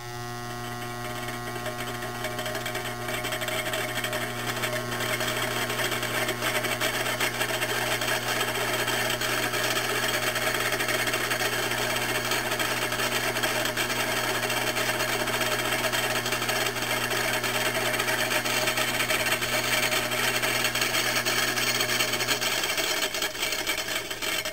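Homemade three-phase induction motor with a small coffee-can rotor switched on: a steady electrical hum starts at once and the rotor's whirring, rattling noise builds over several seconds as it slowly spins up, then runs steadily. It is noisy and slow to start because of the wide air gap between the smaller rotor and the stator coils. Near the end the hum cuts off and the running noise begins to fade.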